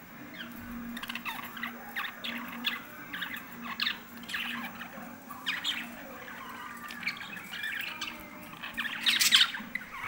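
Small pet parrots chattering: a stream of rapid chirps and short squawks, busiest and loudest in a burst near the end, over a steady low hum.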